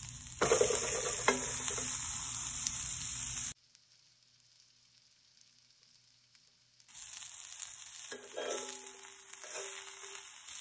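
Beef burger patty frying in butter in a cast-iron skillet, a loud spitting sizzle. It jumps up sharply about half a second in as the patty is flipped, cuts out for about three seconds midway, then carries on.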